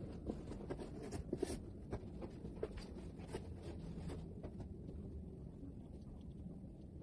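Rustling and soft taps of pillows and bedding being handled, busiest in the first four seconds or so, over a steady low room hum.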